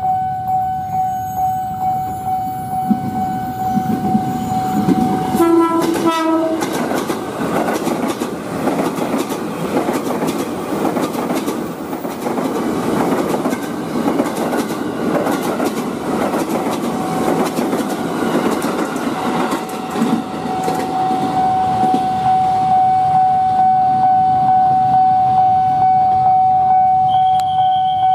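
Railway level-crossing warning bell ringing in steady pulses. About five seconds in, a KRL commuter electric train sounds a short horn blast and then runs past with rattling wheel clatter for about fifteen seconds, while the bell keeps ringing.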